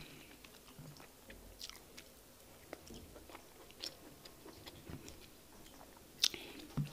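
Chewing and wet mouth smacks from someone eating fufu and egusi soup by hand, with scattered short clicks; the sharpest smack comes about six seconds in.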